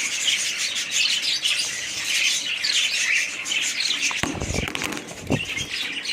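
Many small cage birds chirping and chattering continuously, with a brief flutter of wings about four seconds in.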